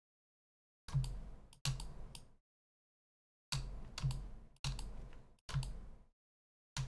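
Computer keyboard keys and mouse buttons clicking in about six short bursts, with dead silence between them.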